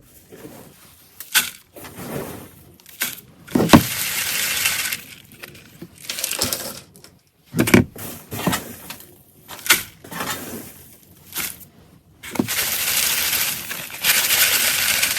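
Hardwood chips rattling as they are shaken through a sieve and poured into a worm bin, in two longer pours, about four seconds in and again from about twelve seconds, with scattered knocks and scrapes between.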